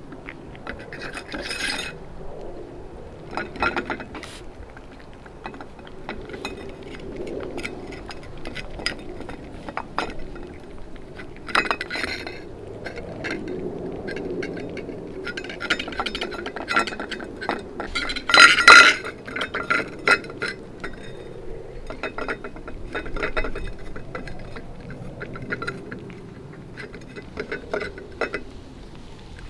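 Cats eating from a stainless steel bowl, the metal bowl clinking and ringing irregularly as they feed, loudest about two-thirds of the way in.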